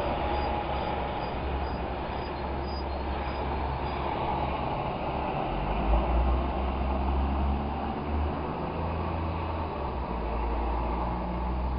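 A small bird's faint, high chirps repeating about twice a second for the first few seconds, over a steady low rumble.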